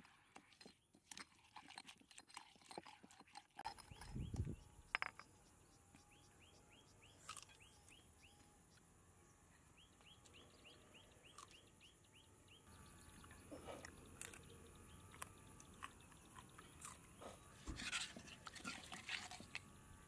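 Faint stone pestle pounding and grinding in a stone mortar, a rapid run of sharp clicks in the first few seconds. Then two bouts of quick repeated chirps, about four a second, from a small animal. Near the end, more scraping and clicking against the stone mortar.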